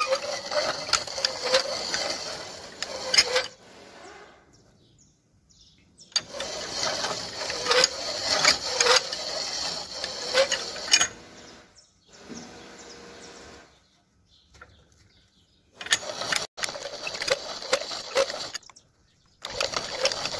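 Improvised lathe turning a steel vise screw, the cutting tool scraping and shaving the rotating metal in bursts of a few seconds with short pauses between cuts. The cut sounds like a rasping hiss with many small clicks; a quieter steady hum from the rig runs briefly between two of the bursts.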